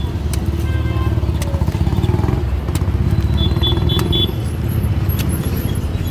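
A vehicle engine running steadily close by as a low rumble, with a few sharp knocks of a curved sickle blade chopping into the husk of palmyra fruit (ice apple).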